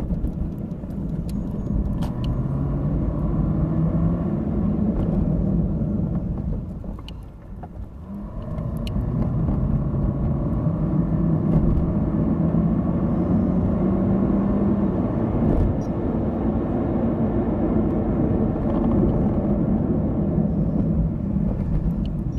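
Motor vehicle engine running with a steady low hum, dropping off briefly about seven seconds in and then picking up again.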